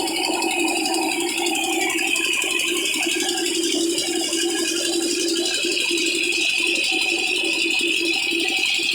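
Old Petter diesel engine running steadily while driving an atta chakki (flour mill), with a constant fast rattle.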